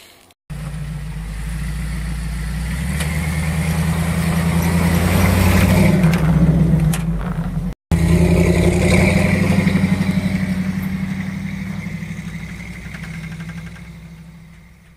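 Motor vehicle engine running as it drives past close by, growing louder to a peak midway, then fading away, with a brief cut-out about eight seconds in.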